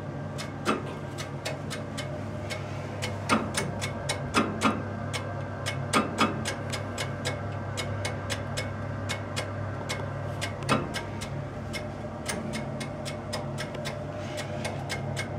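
A 2520 V Combi combi heater from 1997 running with a steady low hum and rapid, irregular ticking, about three or four clicks a second. Several louder knocks stand out among the ticks. These are the strange noises that make the owner doubt the heater will last the winter.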